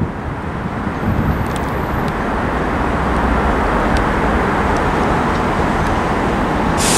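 Two coupled Class 172 Turbostar diesel multiple units arriving slowly, their diesel engines rumbling and growing louder as the train approaches, with a few faint clicks. A hiss starts suddenly near the end.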